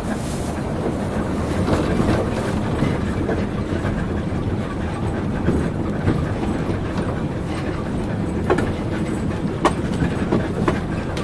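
Moscow monorail car running along its elevated track, heard from inside: a steady rumble with a few sharp clicks near the end. At the very start an oncoming monorail train passes close alongside with a brief rush of noise.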